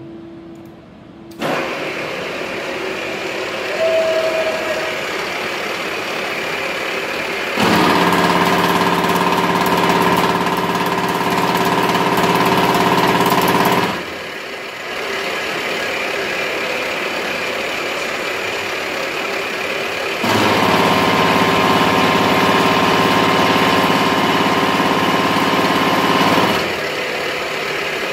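Deckel FP41A CNC milling machine starting up about a second in, then its face mill cutting metal in two passes of about six seconds each, a loud ringing whine during each cut. Between and after the cuts the machine runs more quietly.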